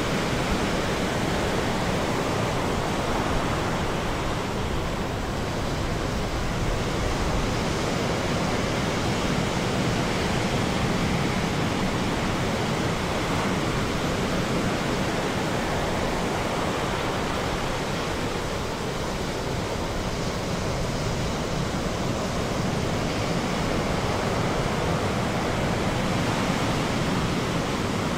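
Ocean surf: breaking waves heard as a steady, even wash of noise, with no single crash standing out.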